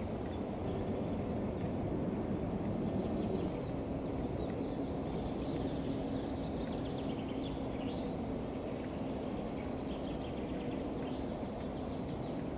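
Steady low outdoor background rumble with a faint steady hum, and a few faint high bird chirps in the second half.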